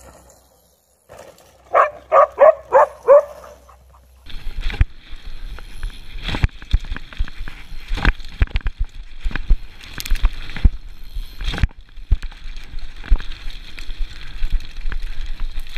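Mountain bike riding down a rough dirt trail, heard close up from a camera on the rider: frequent rattles, knocks and thumps over bumps against steady tyre and wind noise, starting about four seconds in. Before that, a quick run of five or six short pitched calls.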